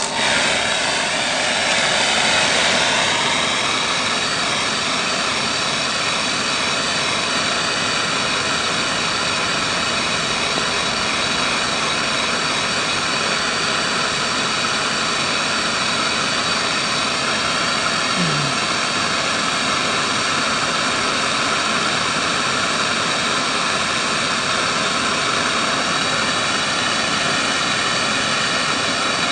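Gas torch flame hissing steadily as it heats a carbon rod to melt brazing alloy. It is a little louder for the first few seconds, then holds even.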